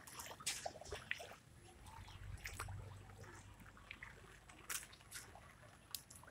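Faint, irregular slaps and small splashes of rubber flip-flops walking on a wet, flooded street, with a brief low rumble about two seconds in.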